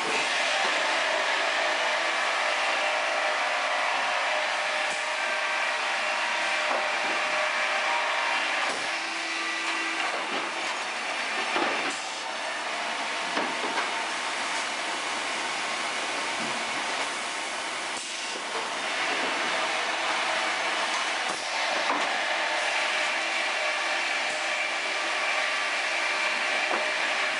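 Sawmill twin circular saws cutting logs fed through on a sharp-chain log conveyor: a loud, steady din of sawing and machinery, broken by a handful of sharp knocks as logs pass through.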